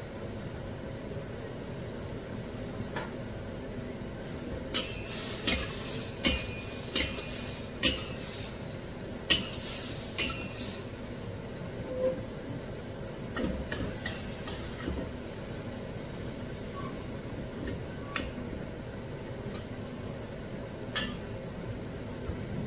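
Metal wok spatula scraping and clinking against a carbon-steel wok while stir-frying mushrooms. The clinks come in a busy run from about five seconds in to about fifteen seconds, with a few single ones later, over a steady low rumble.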